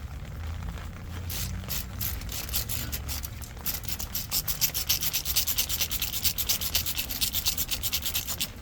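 Hand ratchet clicking in fast rasping runs while unscrewing the ABS wheel-speed sensor bolt. The strokes start sparse about a second in and come thick and fast from about four seconds on.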